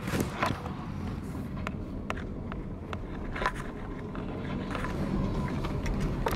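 Camera handling noise: cloth rubbing and scraping against the microphone, with scattered clicks and knocks, over a low steady rumble.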